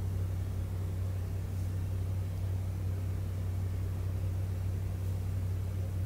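Steady low electrical or machine hum from the room, unchanging throughout.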